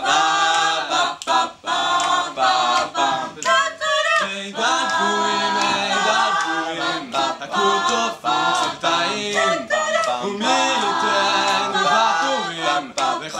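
A five-voice a cappella group of men and women singing in close harmony with no instruments.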